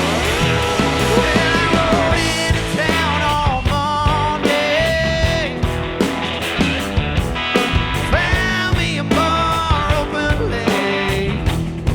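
Blues-rock band playing: electric guitar with bending lead lines over bass guitar and a drum kit keeping a steady beat.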